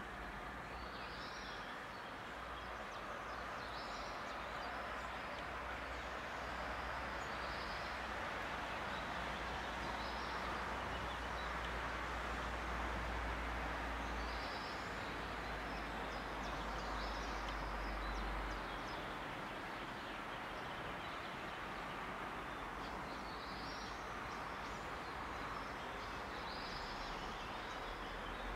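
Steady outdoor background noise with a low rumble, and short high bird calls every couple of seconds.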